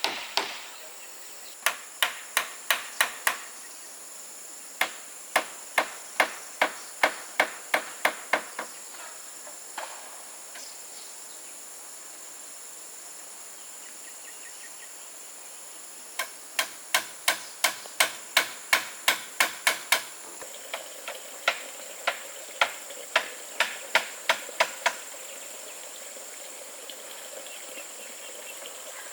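Hammer blows on wood in quick runs, about three strikes a second, stopping and starting four times, as in nailing building timber. A steady high insect drone runs underneath.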